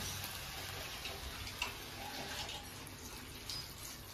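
Quiet, steady hiss from chopped bottle gourd cooking in a steel kadai on a gas stove, with a few faint clicks. Water is poured into the pan near the end.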